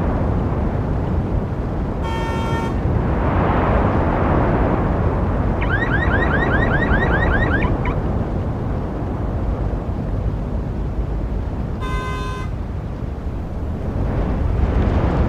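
Steady road traffic noise from passing vehicles. A car horn sounds in two short honks, about two seconds in and about twelve seconds in. Between them, a car alarm gives about two seconds of rapid rising chirps, roughly five a second.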